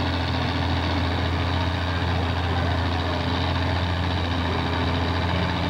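Antique farm tractor engine idling steadily, a constant low hum with no revving.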